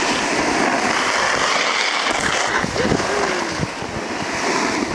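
Wind buffeting the microphone with a steady rush of snowboard sliding and scraping on packed snow.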